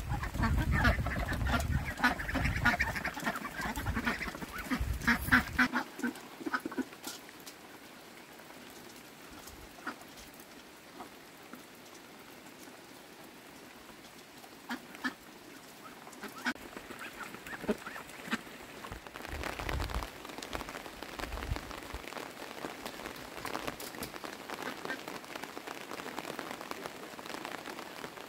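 A flock of domestic ducks quacking loudly together as they crowd round to be fed. After about six seconds the calling stops, leaving a much quieter stretch with scattered light knocks.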